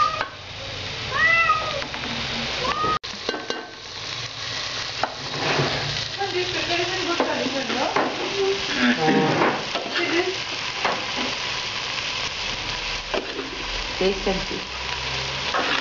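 Metal spoon stirring and scraping a masala of onion, tomato and spices frying in an aluminium pot, with sizzling, then chopped boiled goat organs scooped and dropped into the pot. A few short, high squeaks come in the first few seconds.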